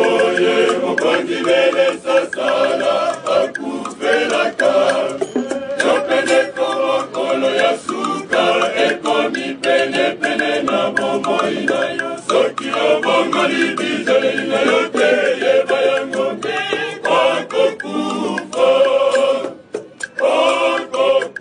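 Male choir singing in harmony, with hand drums and shakers striking along. The singing breaks off briefly near the end.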